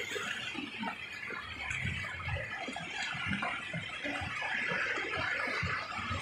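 Shallow seawater washing steadily over a concrete ramp and rocks, a constant hissing wash of small waves.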